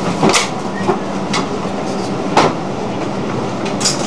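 Inside a cable ship's bridge rolling heavily in a storm: a steady hum and rush under several irregular knocks and rattles, the loudest about a third of a second in and just past halfway. The knocks come from fittings and loose gear shifting as the ship rolls.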